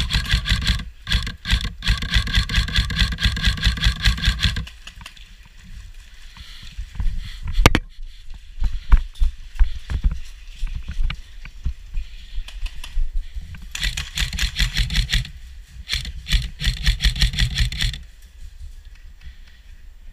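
Airsoft rifle firing on full auto in rapid clicking bursts: one long burst of about four seconds at the start, then two shorter bursts about two-thirds of the way in. Scattered knocks and one sharp crack come in the lull between.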